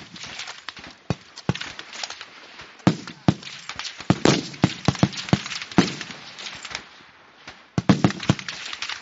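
Rifle shots from several shooters along a firing line: a string of irregular sharp cracks, a few a second, with a brief lull about seven seconds in.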